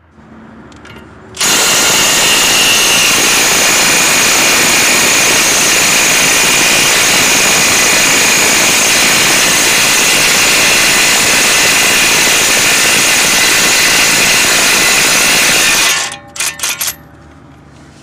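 Milwaukee Fuel cordless impact wrench hammering without a break for about fourteen seconds with a 32 mm socket on a front axle nut, loosening and spinning it off. It stops sharply, followed by a few short clicks.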